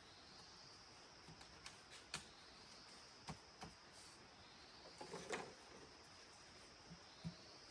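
Faint, steady high-pitched chorus of night insects such as crickets, with a few scattered light clicks and a short rustle about five seconds in.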